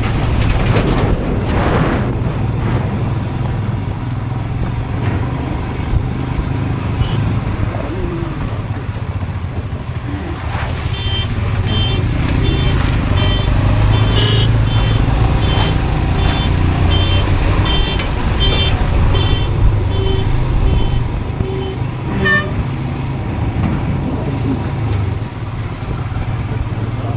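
Motorcycle running at riding speed, a steady low engine rumble mixed with road and wind noise. For about ten seconds in the middle a vehicle's electronic beeping repeats, about two beeps a second, then one short sharp beep follows.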